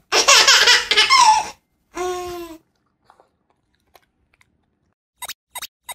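Comic sound effects laid over the picture: a loud burst of giggling laughter, then a short tone sliding down in pitch, and near the end four quick high blips in a row.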